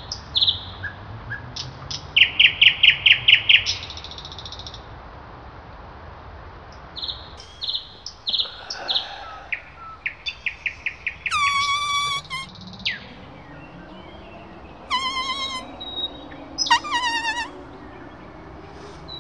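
Several birds calling and singing. The loudest is a fast run of clear chirps, about six a second, a couple of seconds in, followed later by shorter trills and a few harsher, rasping calls.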